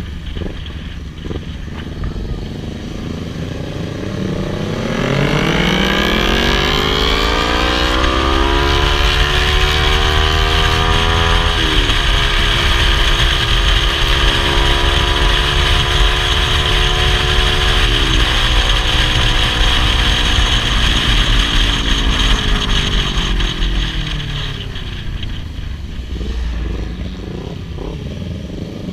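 Kawasaki Ninja H2's supercharged inline-four engine running low, then revving up over a few seconds and held at high revs with two short dips, before the revs fall back down near the end.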